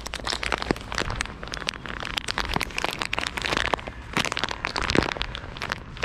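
Dense crackling and rustling close to the microphone, from a bag of peanuts being handled.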